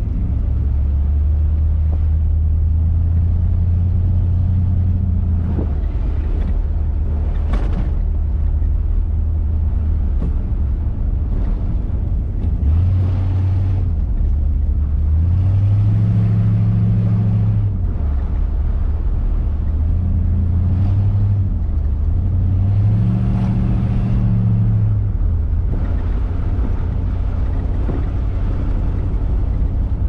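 1957 Ford Thunderbird's V8 engine running as the car is driven, its note rising and falling several times as it speeds up and eases off, over steady road and wind noise.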